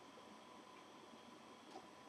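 Near silence: faint room tone, with one faint short click near the end.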